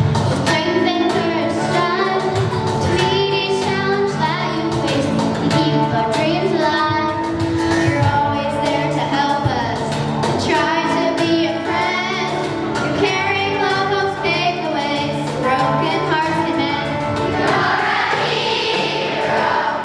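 Elementary school children's choir singing a song over sustained instrumental accompaniment.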